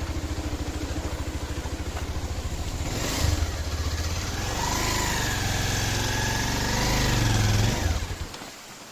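Motorcycle engine running at low revs, picking up about three seconds in and pulling harder with a wavering whine, then dropping away sharply near the end.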